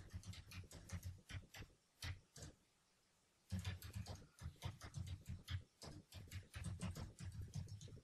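Typing on a computer keyboard: quick runs of key clicks in bursts, with a pause of about a second partway through.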